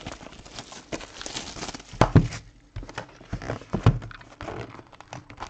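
Plastic shrink wrap rustling as it is pulled off a cardboard box of trading cards, then the box being opened and handled, with scattered light clicks and two dull thumps about two and four seconds in.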